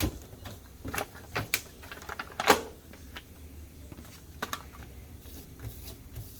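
Irregular clicks and clinks of metal engine parts being handled and set down on a workbench during a Harley-Davidson motor build, the loudest knock about two and a half seconds in.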